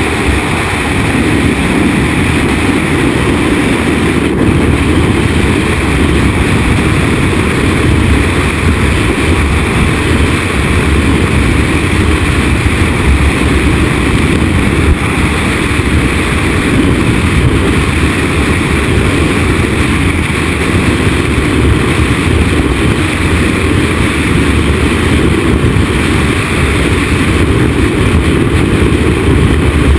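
Freefall airstream rushing over the camera microphone during a skydive: loud, steady wind noise, heaviest in the low range, without a break.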